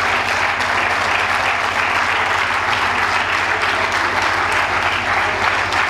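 Large crowd applauding steadily, with a faint steady low hum underneath.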